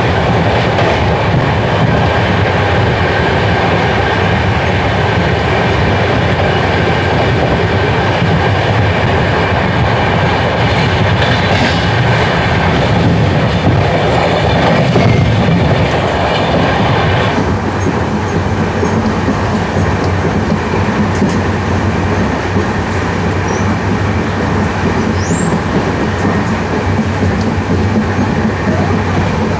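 Indian Railways express train running on the line, a steady loud rumble of wheels on track. The higher hiss eases a little about 17 seconds in.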